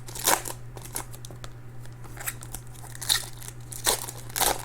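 Foil trading-card pack wrappers crinkling and cards being handled, in short scattered rustles and clicks, the sharpest about a third of a second in, about three seconds in and near the end.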